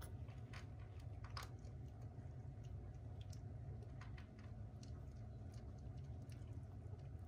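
Scattered soft clicks and wet smacks as a Scottish Fold mother cat licks her nuzzling kittens, over a steady low hum.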